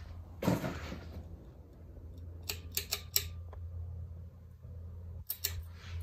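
Hampton Bay St. Augustine II ceiling fan's motor humming steadily. Sharp clicks come in a quick cluster about two and a half seconds in and twice more near the end: the pull-chain switch being pulled to change the fan from low to medium speed.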